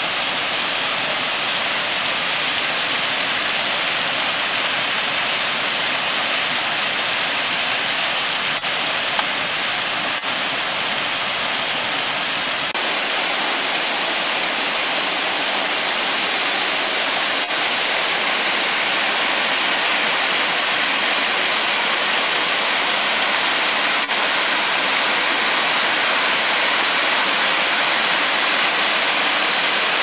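Creek water cascading over rock ledges into a pool: a steady, loud rushing hiss of a small waterfall, its tone shifting slightly partway through.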